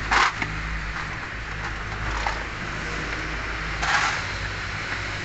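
Short hissing bursts from a compressed-air hose nozzle: one right at the start and one about four seconds in. A steady low hum runs underneath.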